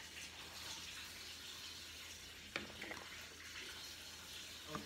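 Quiet room noise: a faint steady hiss with a low hum, and two soft clicks about two and a half and three seconds in.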